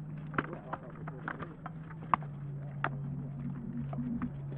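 Irregular sharp cracks and knocks of rattan practice swords striking shields and armour during armoured sparring, about a dozen blows, the loudest about two seconds in. A steady low hum runs underneath.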